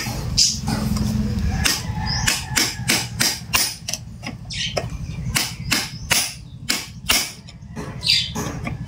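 Hammer striking a screwdriver set against a chainsaw's clutch, a series of sharp metallic knocks about two to three a second. The clutch is being knocked loose to unscrew it from the crankshaft, with the piston locked by a rope through the spark-plug hole.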